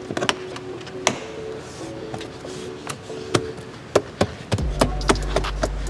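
Plastic interior side trim panel clicking and knocking as it is fitted and pressed into its clips: a series of sharp clicks, closer together near the end, over background music.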